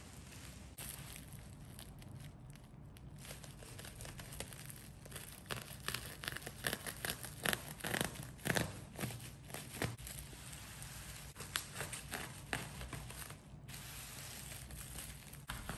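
Plastic parcel wrapping crinkling and tearing as it is cut and pulled open, a dense run of sharp crackles that is busiest in the middle.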